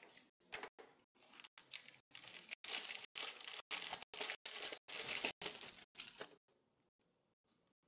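Thin frosted plastic bag crinkling and rustling as a phone case is worked out of it, loudest in the middle and stopping about six seconds in.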